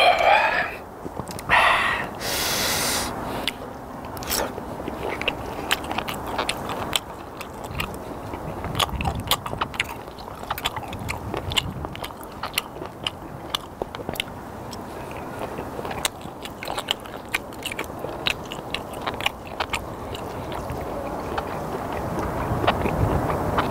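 Close-miked chewing of sliced raw skate, with many small wet mouth clicks and crunches of the fish's cartilage. A brief voiced grunt and a breathy exhale come near the start.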